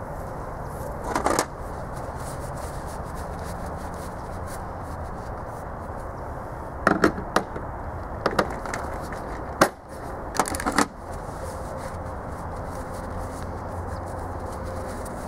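Metal wrenches being set back into a plastic toolbox's wrench rack: a few short clicks and clatters, one a second in and a cluster in the middle, over a steady low background noise.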